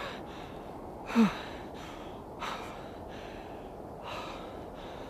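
A man breathing hard: a short voiced gasp falling in pitch about a second in, then two quieter breaths.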